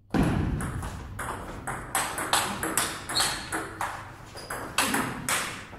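Table tennis rally: the celluloid ball clicking off the rackets and bouncing on the table in a quick run of sharp ticks, several a second, with a short echo after each.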